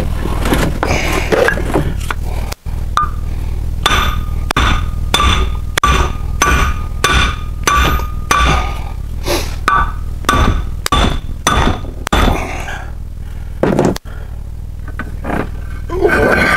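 Four-pound club hammer blows on a Land Rover Defender 90 rear brake disc and hub, knocking the rusted-on disc off. A steady run of ringing metal-on-metal strikes, about two a second, starts a few seconds in and stops shortly before the end, with one more blow after it.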